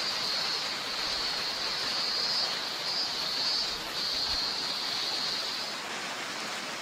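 Rushing forest stream, with a steady high-pitched drone over it that stops about six seconds in.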